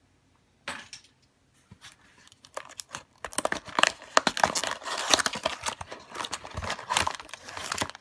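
Small paperboard retail box torn open by hand, then its packaging handled. A short rustle comes about a second in and a few light clicks follow. From about three seconds in there is a dense, crackling run of tearing card and crinkling packaging.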